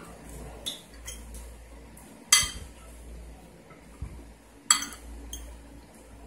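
Tableware clinking during a meal: a spoon and dishes knocking on plates in about five sharp clinks, the loudest about two and a half seconds and nearly five seconds in, over a faint steady low hum.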